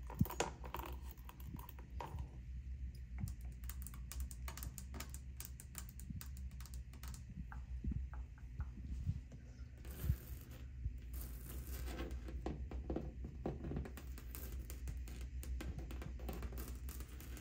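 Long fingernails tapping and scratching in quick, irregular runs of clicks, first on a plastic hairbrush and bottle on a stone counter, then on textured wallpaper.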